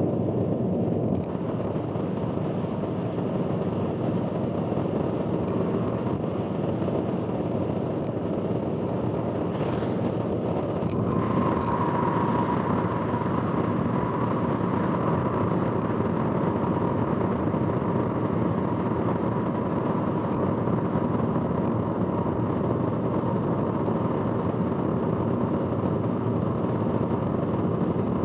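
Steady road and tyre noise of a car driving on an expressway, heard from inside the car. A steady whine joins in about a third of the way through and holds on.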